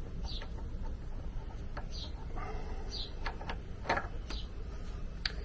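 A bird chirping repeatedly, about once a second, over a few sharp clicks of small metal parts being handled.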